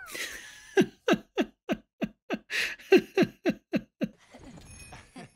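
A person laughing: a run of about a dozen short "ha" pulses, roughly three a second, each dropping in pitch, with a breathy gasp partway through.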